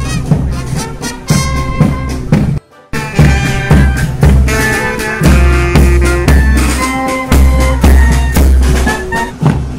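Naval marching band playing live as it marches past: brass horns hold a melody over a steady bass drum beat. The sound cuts out for a moment about three seconds in.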